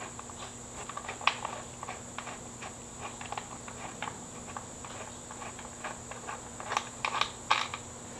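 Hand socket ratchet clicking in short, irregular runs as a loosened bolt is backed out, with a few sharper metal clicks near the end.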